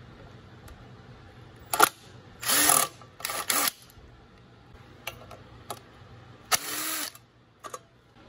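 Cordless drill with a 3/8-inch socket spinning in short trigger bursts, winding up and down in pitch. The bursts come once about two and a half seconds in, twice quickly just after, and once more near seven seconds. It is backing out the bolts that hold the air cleaner base plate on the engine.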